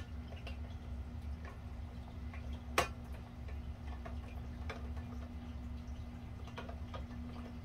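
Scattered light clicks and ticks from a ceiling fan's housing parts and screws being handled and fitted back together, irregularly spaced, with one sharper click about three seconds in. A steady low hum runs underneath.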